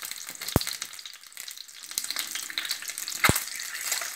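Boiled eggs sizzling and crackling as they fry in hot oil in a pan, with two sharp knocks of a utensil against the pan, about half a second in and about three seconds in.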